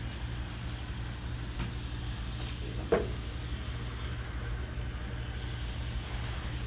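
Bachmann Gordon model locomotive running around the track with its express coaches: a steady, fluttering low motor-and-wheel hum. A brief higher sound stands out about three seconds in.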